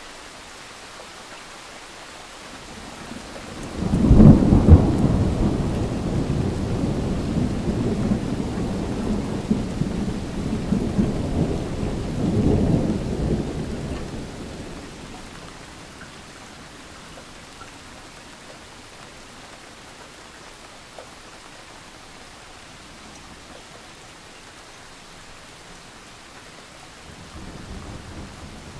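Steady rain with a roll of thunder: it breaks suddenly about four seconds in, rumbles on with a second swell, and dies away after about ten seconds, leaving the rain. Another rumble begins near the end.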